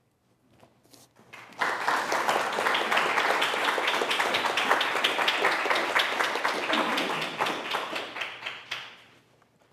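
Audience applauding. It comes in suddenly about a second and a half in, holds steady, and dies away shortly before the end.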